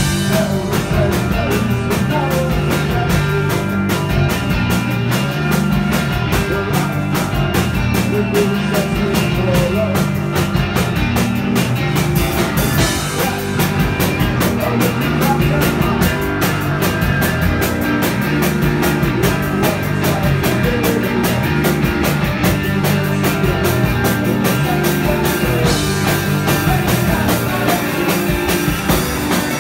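Live rock band playing loudly: electric guitars over a drum kit with steady drum and cymbal hits, heard from the audience.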